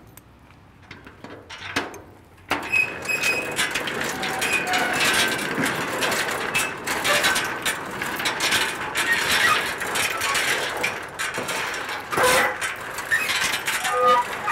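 A few faint clicks, then about two and a half seconds in a sudden, busy run of mechanical clattering and clicking, scattered with short clinking tones, that goes on steadily.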